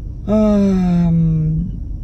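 A woman's voice drawing out one long wordless vocal sound of about a second and a half, its pitch sinking slowly, over a steady low hum.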